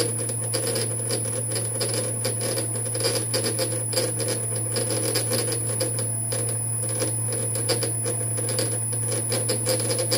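Metal lathe running under power on a threading pass, its tool cutting a 5 tpi Acme thread into a bronze nut. A steady motor hum runs under a fast, irregular metallic clicking and rattling.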